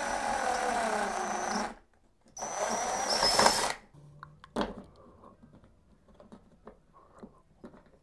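Cordless drill boring a bigger hole through drywall in two bursts of over a second each, the motor's whine dipping in pitch as the bit bites. After that come faint clicks and scrapes as a fish tape is worked in the hole.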